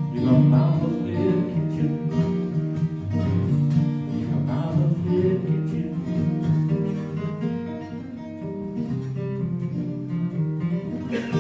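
Acoustic guitar strumming the closing bars of a country song.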